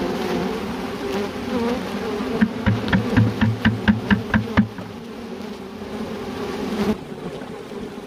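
Honeybee swarm humming steadily, heard from inside the hive. About a third of the way in comes a quick run of around ten sharp knocks, about five a second, and near the end the level drops suddenly.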